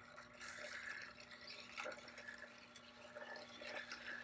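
Electric pottery wheel's motor humming steadily while hands work wet clay on the spinning wheel head, with soft, irregular wet rubbing and dripping sounds.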